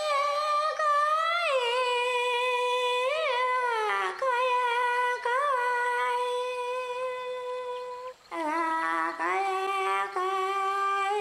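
A woman singing alone with no accompaniment, one high voice holding long notes with small turns in pitch. She breaks off briefly about eight seconds in and goes on a lower note.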